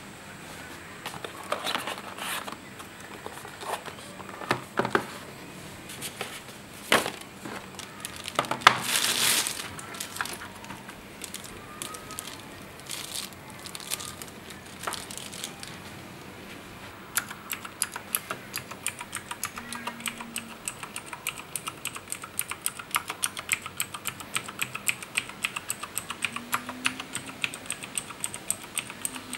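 Scattered knocks and the crinkle of packaging as a Razer BlackWidow Chroma mechanical keyboard is handled. From a little past halfway, fast, steady typing on its mechanical keys runs to the end.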